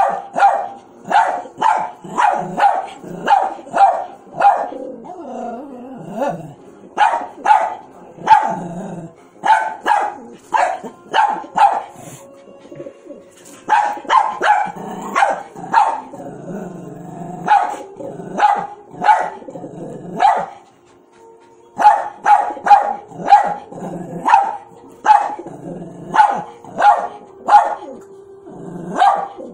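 A small dog barking at a pigeon in play: quick runs of sharp, fairly high barks, a few a second, broken by short pauses.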